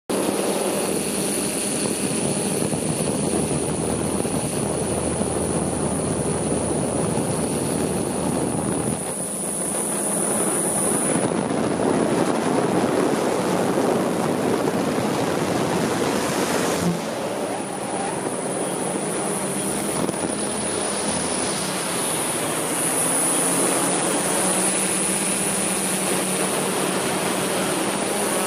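Multirotor camera drone's motors and propellers running steadily, heard from the drone's own camera: a dense whirring hiss with a thin high whine over it. The level dips briefly about nine seconds in and again around seventeen seconds.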